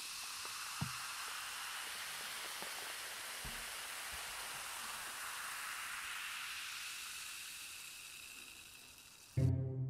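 Beer fizzing in a glass mug: a steady high hiss of carbonation bubbles that slowly fades out near the end, with music starting just as it dies away.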